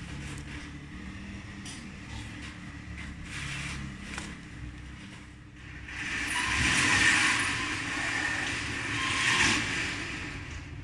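Paper and thin cardboard of a paper cockroach trap being handled, folded and pressed into shape, rustling and crinkling; the sound grows louder from about six seconds in, with two louder swells, as a paper strip at the front edge of the glue floor is worked.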